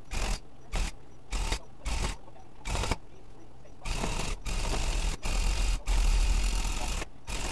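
Electric rug-tufting gun punching yarn into the backing cloth. It runs in short bursts, about two a second, then in longer runs of around a second each from about four seconds in.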